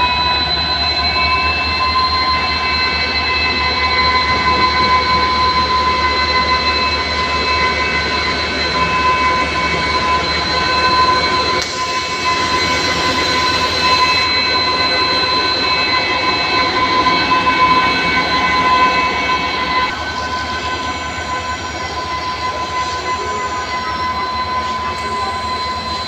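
WDG4 diesel-electric locomotive passing close and pulling away, its EMD two-stroke turbocharged engine giving a steady high turbocharger whine over the low rumble of wheels on rail. From about twenty seconds in the whine fades as the wagons roll by, with faint wheel squeals.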